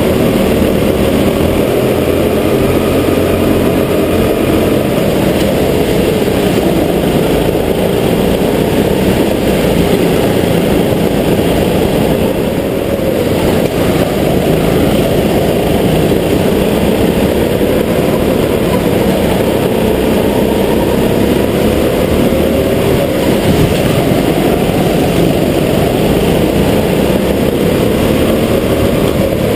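Rental go-kart engines running hard, heard close from on board a kart; the engine note rises and falls again and again as the throttle is worked through the corners.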